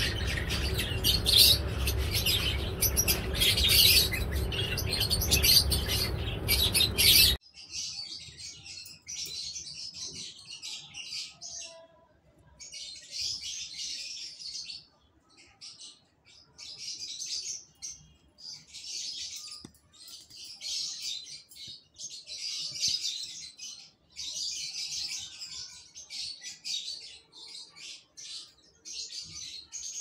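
Lovebirds chirping and chattering in short, high-pitched bursts. For about the first seven seconds a loud steady background noise lies under the calls and then cuts off abruptly. After that the chatter comes in clusters of a second or so, separated by short gaps.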